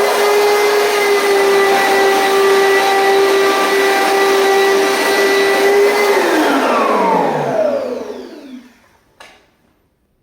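Commercial vacuum cleaner running with a steady high whine, then switched off about six seconds in: the motor winds down, its whine falling in pitch over about three seconds. A single click comes near the end.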